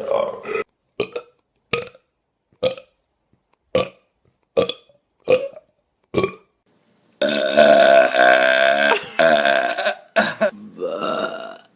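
A person burping: a run of about eight short, clipped burps, roughly one a second, then about seven seconds in a long, loud belch lasting some three seconds that falls in pitch, with another shorter belch near the end.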